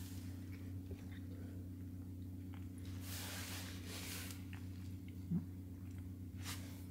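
Domestic cat purring steadily while being stroked, with a few soft brushing or breathy noises and one brief tiny chirp about five seconds in.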